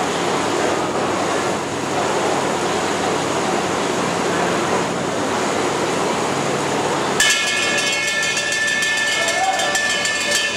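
Steady noisy hubbub around a Muay Thai ring. About seven seconds in, a boxing ring bell starts ringing in rapid repeated strikes for about three seconds, the signal for the fighters to start the round.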